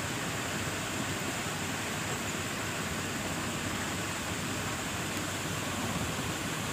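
Steady, even hiss of background noise with no other sound on top.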